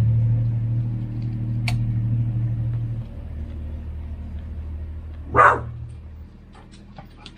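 A dog barks once, short and sharp, about five seconds in. A low steady hum fades away under it. There are a few faint crunching clicks of a pear being bitten and chewed.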